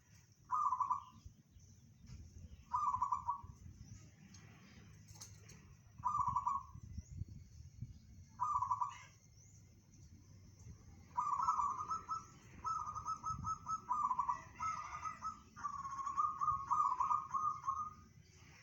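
Zebra dove (local perkutut) cooing: four short coos a few seconds apart, then a longer run of quick repeated cooing phrases over the last third.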